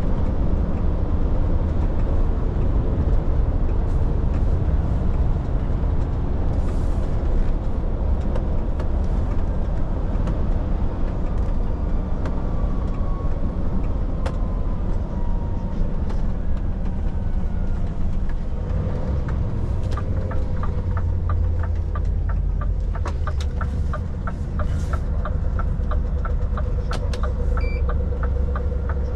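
Truck engine and road rumble while driving, steady throughout. A faint falling whine shows up around the middle, and in the last third a fast, regular ticking comes in over the rumble.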